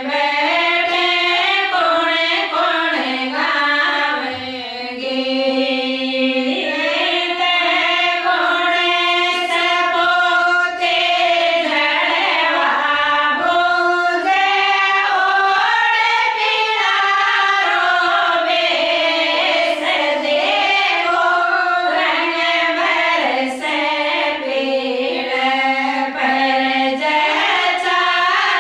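A group of women singing a Rajasthani folk song together, the jalwa song for a new mother, in long held notes that rise and fall.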